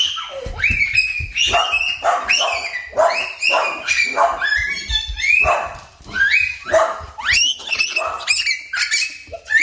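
A dog yipping and whining excitedly in a quick string of short high calls, many rising sharply in pitch, as it greets a returning person.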